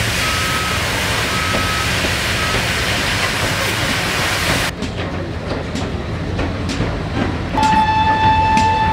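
A steady, loud hiss around steam locomotives standing on shed, with a short beep repeating about twice a second through it. About halfway through it cuts abruptly to a quieter locomotive works shed with a few sharp clicks, and near the end a steady whistle tone with overtones starts and is held.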